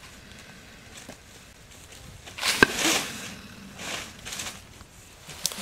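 Dry leaves and undergrowth rustling in a few short bursts as a large crocodile is disturbed in the leaf litter, with a sharp snap about two and a half seconds in.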